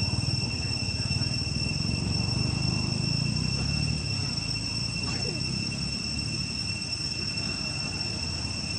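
Insects droning with a steady, unbroken high-pitched whine, over a low rumble.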